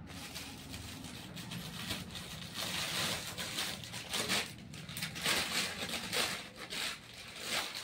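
Rustling and crinkling of cloth and plastic packaging as ladies' suits are handled and a packed suit is brought out, in uneven surges.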